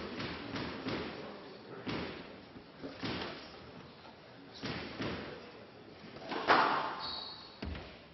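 Squash ball knocks: a string of separate sharp thuds, mostly about a second apart, with short ringing after each. The loudest comes about six and a half seconds in, with a brief high squeak right after it.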